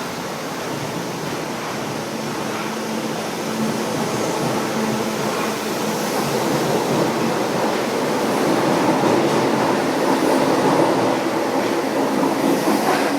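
São Paulo Metro Line 1 train approaching along the track, a rumble of wheels on rails that grows steadily louder and is loudest near the end.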